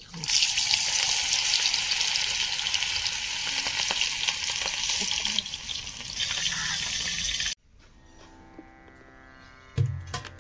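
Batter-coated prawns deep-frying in hot oil in a small kadai, a loud steady sizzle that starts as a prawn is dropped in and cuts off suddenly about seven and a half seconds in.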